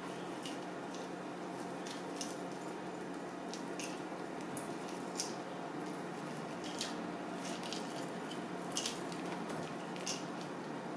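Kitchen knife slicing into a peeled pineapple, cutting V-shaped grooves to take out its deep-set eyes: short, crisp, wet cuts at irregular intervals over a steady hum.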